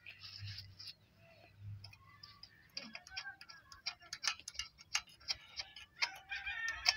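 Irregular metal clicks and ticks of a spanner working a stiff nut loose on the blade of a hand-turned chaff cutter. The clicks come a few a second and get busier in the second half.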